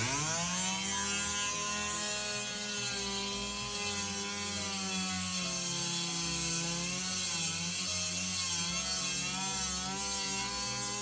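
Handheld rotary tool starting up and rising to speed, then running steadily with a diamond tube drill bit grinding a hole in glass. The motor's whine wavers a little in pitch as the bit bites.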